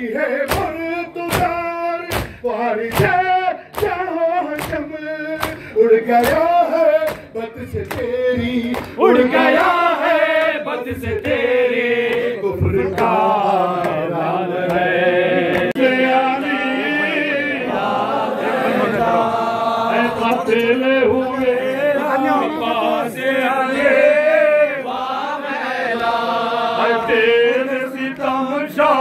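Rhythmic matam strikes, hands beating on chests about twice a second, for the first several seconds. Then a group of mourners chants a nohay (Muharram lament) together in unison.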